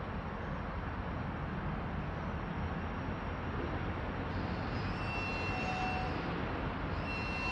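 Steady rumble of a Norfolk Southern SD70ACe diesel locomotive idling. Thin, steady high whining tones come in about four seconds in.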